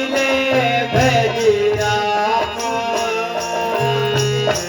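Live folk music: a steady hand-drum beat under a melody line, played between sung verses.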